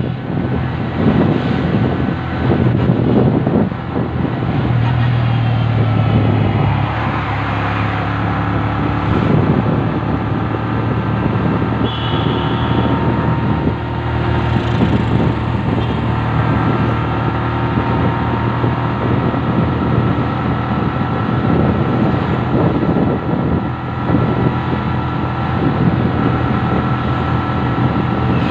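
Vehicle engine running steadily at cruising speed, with road and wind noise on the microphone.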